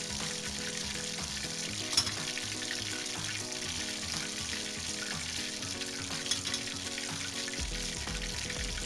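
Chicken drumsticks deep-frying in hot oil, a steady sizzle and bubbling, as they are scooped out with a wire strainer; two sharp metal clinks, about two seconds in and about six seconds in. Soft background music runs underneath.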